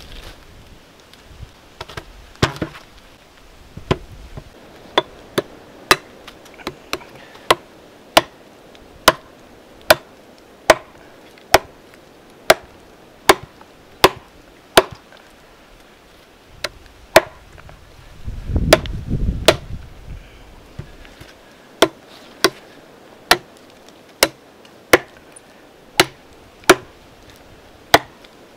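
Steel broken-back seax chopping into a knot in a log, about one sharp blade strike into the wood every second in an even rhythm. A short low rumble comes about two-thirds of the way through.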